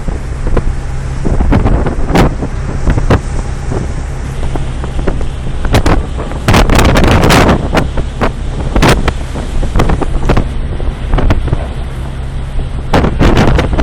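Storm wind buffeting the microphone on board a ship in repeated loud gusts, over the vessel's steady low hum.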